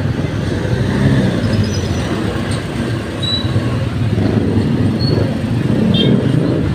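Motorcycle engine running steadily with a low rumble of engine and road noise while riding along a street.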